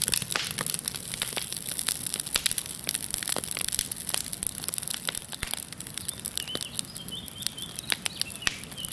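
Fire crackling with dense, irregular snaps and pops. A bird chirps faintly in the second half.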